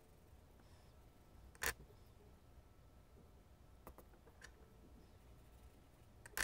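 Pencil and eraser set down on a wooden desk: a sharp click about a second and a half in, two faint ticks near the middle, and another sharp click at the end, over near-silent room tone.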